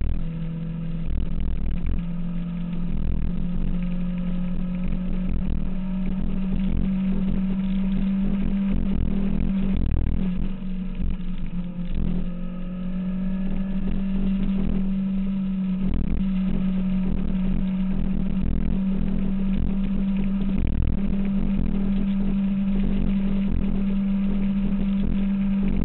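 2006 Kawasaki ZX-6R inline-four engine running steadily at road speed. It eases off briefly about ten to thirteen seconds in, then holds steady again.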